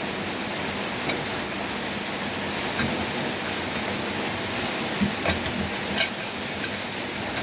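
Steady hiss with a handful of light clicks and taps from fork parts being handled as a split Teflon bush is spread and fitted onto the fork tube.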